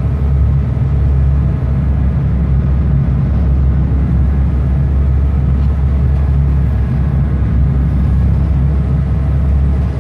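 A fishing boat's diesel engine running steadily underway, a loud, even low drone heard from inside the wheelhouse.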